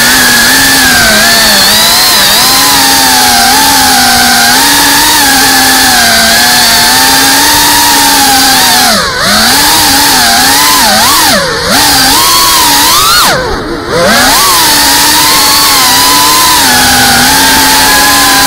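FPV racing quadcopter's brushless motors and propellers whining loudly. The pitch wanders up and down with the throttle over a steady hiss of prop wash. Three times, about nine, eleven and a half and thirteen and a half seconds in, the whine dips sharply and the sound drops away briefly before climbing back.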